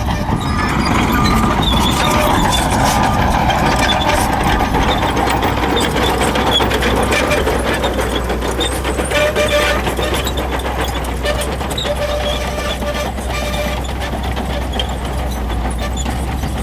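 Shantui crawler bulldozer's diesel engine running steadily, with the steel tracks clanking and rattling as it works.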